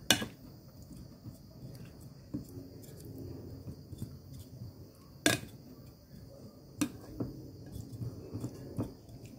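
White plastic spatula stirring boiled baby potatoes in mayonnaise in a glass bowl: soft, wet mixing sounds with a few sharp clicks of the spatula against the bowl, the loudest about five seconds in.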